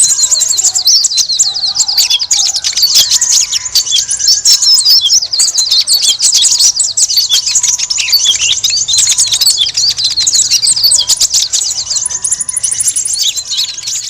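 Bird-lure recording of many small birds chirping and twittering at once: a dense, busy chorus of rapid high-pitched chirps and trills with no pause. It is a noisy small-bird lure call used to draw konin (kolibri ninja) in to a trapping spot.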